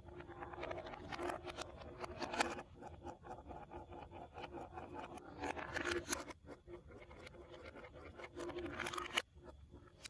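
Plastic marble run building pieces being handled, with quick clicking and scraping in three busier spells.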